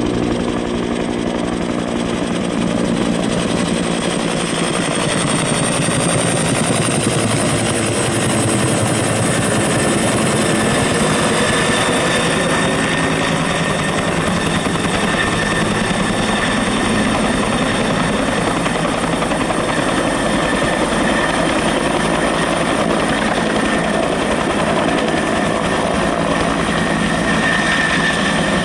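Red two-bladed Bell Huey-type helicopter flying low overhead: steady rotor beat with a high turbine whine that runs throughout.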